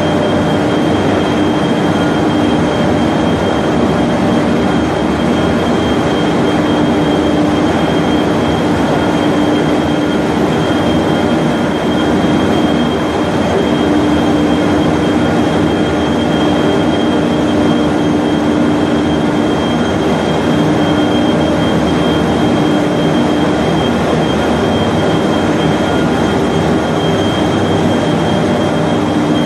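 Steady loud drone of a paper machine's drive line running: electric motors, gearboxes and drive shafts giving a constant hum with a thin high whine over it, unchanging throughout.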